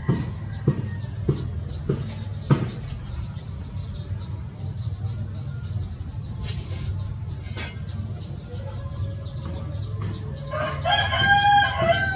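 A loud, pitched animal call lasting about a second and a half near the end, over a low steady hum. Scattered sharp clicks and faint high chirps come earlier.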